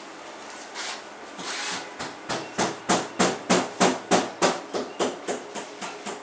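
A run of about fifteen sharp knocks at roughly three a second, growing louder and then fading, after two softer scraping swells.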